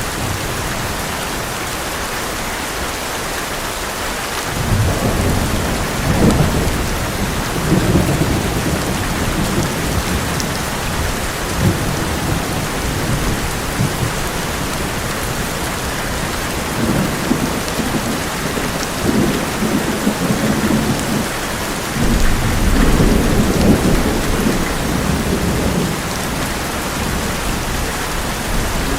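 Heavy rain drumming steadily on an old metal roof, with rolls of thunder rumbling through it: one starts about four seconds in and swells on and off for several seconds, and a louder one comes in near the end.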